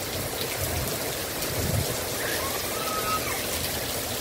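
Heavy rain pouring down, an even, steady hiss of water.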